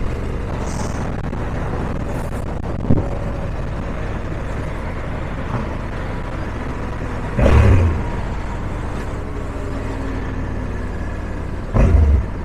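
Honda Africa Twin motorcycle riding in a slow motorway traffic queue: steady engine, road and wind rumble. There is a short sharp spike about three seconds in, and two brief louder surges of low rumble later on.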